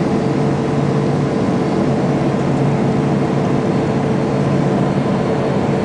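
Steady jet engine and airflow noise inside the cabin of a Boeing 767 airliner on approach, an even roar with a constant hum of a few steady tones.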